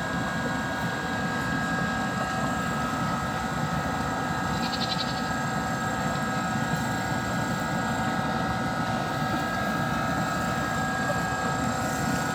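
A litter of puppies eating canned dog food together from one bowl, chewing and lapping, over a steady hum. A brief high sound comes about five seconds in.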